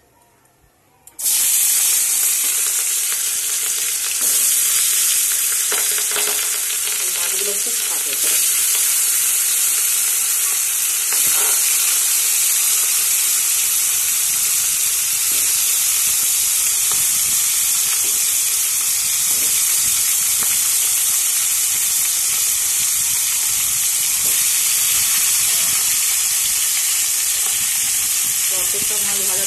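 Fish pieces sizzling as they fry in hot oil in a kadai. The sizzle starts suddenly about a second in as the fish goes into the oil, steps louder a few times over the next ten seconds, then runs on steadily.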